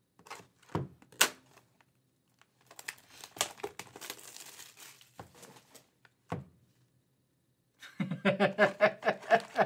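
Shrink wrap on a hobby box of trading cards being slit with a small cutter, with two sharp clicks about a second in, then the plastic crinkling as it is peeled off. A man laughs near the end.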